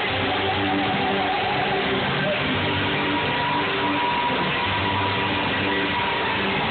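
Live rock band playing loud, heard through a phone's microphone: electric guitars over a drum kit, with one long high guitar note that slides up and is then held.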